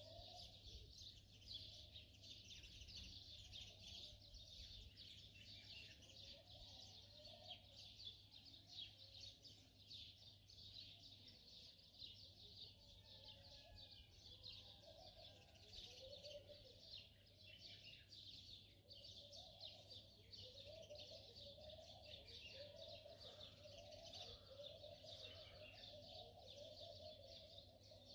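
Faint background of birds chirping, with short chirping calls over a steady high twittering.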